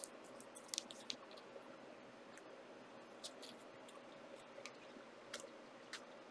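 Faint scattered clicks and light taps of trading cards being handled and flipped through by hand, a little cluster about a second in and a few more later, over a faint steady hum.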